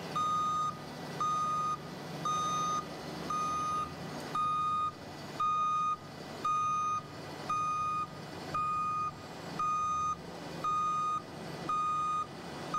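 Backup alarm on a Mud Dog 1200 hydro excavator truck beeping steadily, about one half-second beep per second, sounding because the tailgate is in motion. Underneath is a steady low hum from the truck.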